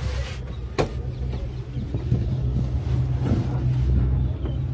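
Steady low hum of a running vehicle, with one sharp click about a second in.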